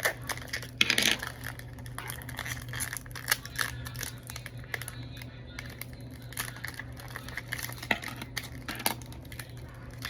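Small plastic miniature toy pieces and their wrapping being handled: crinkling, with scattered light clicks and taps and a louder rustle about a second in, over a low steady hum.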